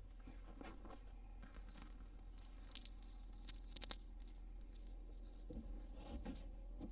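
Faint, scattered crackling and scraping of ice being picked and knocked off an iced-up windshield wiper blade by hand, in short clusters a few seconds apart.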